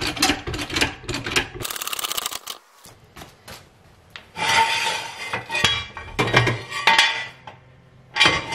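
Steel hydraulic floor jack being pumped, its handle and lifting arm clicking and knocking, with a loud metal clank about two seconds in. Then a steel jack stand rattles and clanks as it is set and adjusted under the car, a run of metallic rattling clicks with a ringing note.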